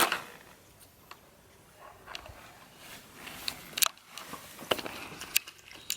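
Faint, irregularly spaced light clicks and taps in a quiet small room, about half a dozen sharp ones in the second half.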